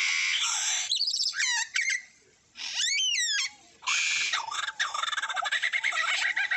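Lyrebird singing in mimicry of other birds: harsh calls and swooping whistles in the first few seconds, then a long run of rapid chattering notes like a kookaburra's laugh.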